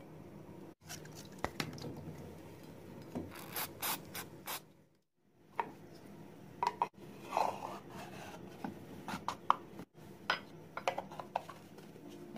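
Handling noise from a small oak-veneered wooden box and its sheet-brass cap: rubbing and scattered light clicks and knocks of wood and metal against each other and the bench, broken by a few brief silent gaps.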